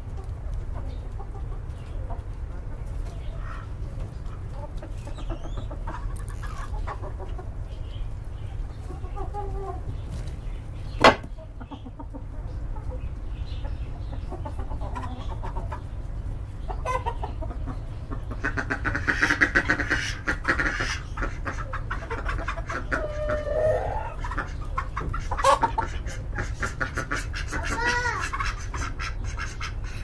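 Chickens clucking in a poultry shed, rising to a flurry of louder squawking about two-thirds of the way through. There is a single sharp knock partway in, and a steady low rumble underneath.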